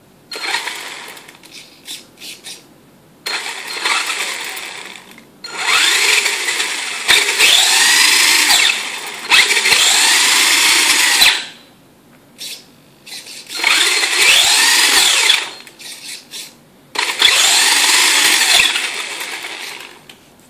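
A 4WD RC car's brushed electric motor and drivetrain whining in about five bursts as the throttle is opened and released, the pitch rising and falling in each. The longest burst runs for about six seconds through the middle.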